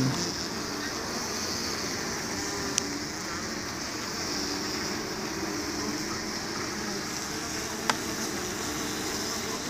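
Mandaçaia stingless bees (Melipona quadrifasciata) buzzing steadily over the comb of an opened hive box. Two short clicks sound, one about three seconds in and one near the end.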